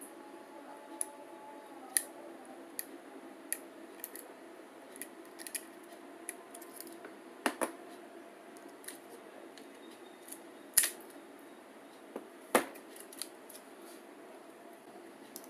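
Scattered small sharp clicks and taps of metal tweezers and fingers on an opened smartphone's frame and its replacement LCD panel as the parts are handled, with the two loudest clicks about 11 and 12.5 seconds in.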